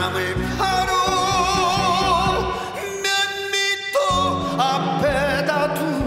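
A man singing a slow trot song into a microphone over instrumental backing, holding long notes with a wide vibrato.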